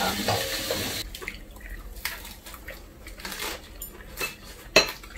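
Metal spoons and chopsticks clinking against ceramic bowls and a frying pan as food is served and eaten, scattered light clicks with one sharp clink near the end.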